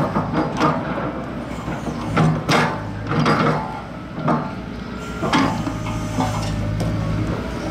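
Tracked excavator's diesel engine running steadily under irregular heavy metal clanks and scrapes from its attachment working in the ground, roughly one a second. The clanks thin out after about six seconds, leaving the engine.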